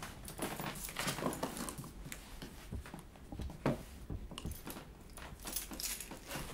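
Small taps, clicks and rustles of objects being handled on a wooden dresser top, with one sharper knock a little past halfway.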